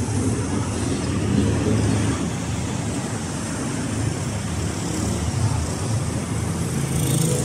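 Steady road traffic noise, cars running past a junction.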